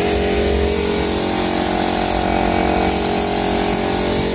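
Gravity-feed compressed-air spray gun hissing steadily as it sprays paint, over a steady mechanical hum. The hiss briefly thins just past two seconds in.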